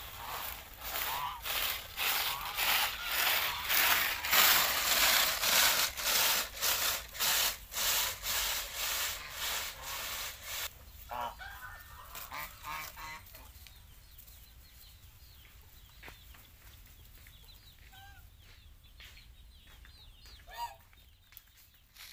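A flock of domestic geese honking loudly and rapidly, raspy calls tumbling over one another for about ten seconds, then dying down to occasional short, quieter calls from the farmyard fowl.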